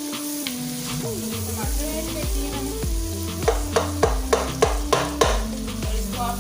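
Brain masala with tomatoes sizzling as it fries in a pan, stirred with a spoon; about halfway through comes a quick run of about seven sharp scrapes and knocks of the spoon against the pan, a few a second. Background music plays throughout.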